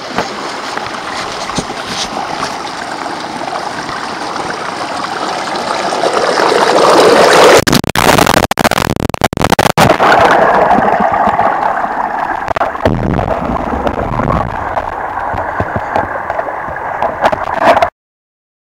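Shallow river water rushing and splashing over rocks close to the microphone, louder about six to ten seconds in with a few brief dropouts, then cutting off suddenly near the end.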